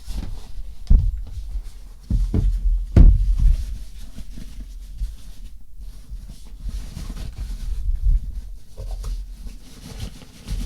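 Handling noises as a small air compressor and its accessories are packed into a fabric carry bag: irregular bumps and rubbing, with louder knocks about a second in and around three seconds in.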